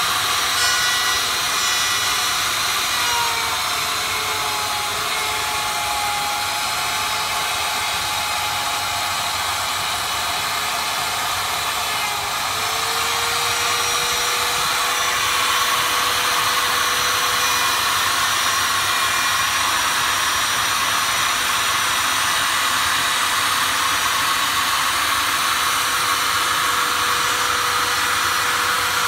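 Handheld power tool and its dust extractor running continuously while cutting MDF: a steady rushing of air under a motor tone that sags in pitch a few seconds in and climbs back about twelve seconds in.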